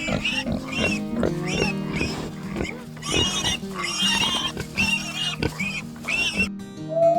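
Pig squealing in a quick string of short, high cries over background music. The squeals cut off suddenly near the end, and a rising whistle-like tone begins.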